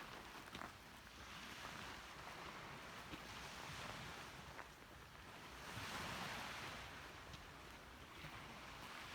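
Faint sea waves washing in, the water noise swelling and falling away every couple of seconds, loudest about six seconds in, with a few light clicks.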